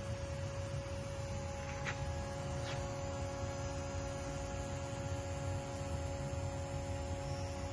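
Steady electrical hum with a constant mid-pitched tone over a low rumble, and two faint ticks about two and three seconds in.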